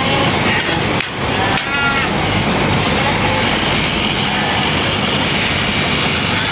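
Electric sheep-shearing clippers running steadily, with a sheep bleating over them; the clearest bleat comes about two seconds in.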